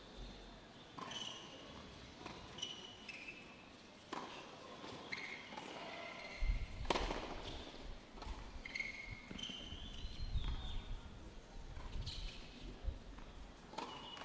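Doubles tennis rally on a hard court: sharp pocks of rackets hitting the ball and the ball bouncing, a few seconds apart, the loudest hit about seven seconds in.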